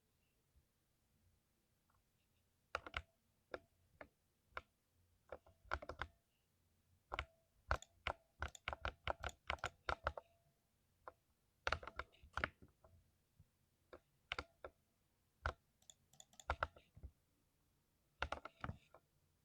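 Typing on a mechanical keyboard with lubed switches: irregular keystrokes in bursts, with a fast flurry between about eight and ten seconds in and short pauses between runs.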